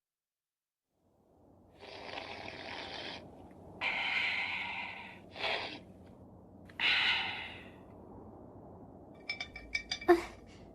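Cartoon sound effects of slurping soup: four noisy, breathy slurps. Near the end come quick light clinks on a dish, like a beak tapping a plate.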